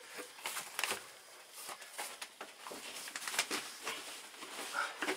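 Light rustling and scattered small clicks and knocks of hands working a cable among wooden ceiling joists; no drill running.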